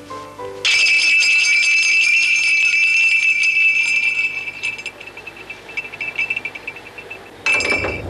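Small metal jingle bell on a wire jangling and ringing. It starts sharply about a second in, rings bright and loud for a few seconds, then dies down. A second short burst of jangling comes near the end and cuts off suddenly.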